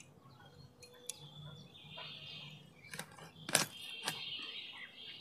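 Fish being cut on a boti blade: a few sharp clicks and snaps as a lata (spotted snakehead) is pressed through the upright blade, four in all, the loudest about three and a half seconds in. A steady high-pitched chirring runs behind them from about two seconds in.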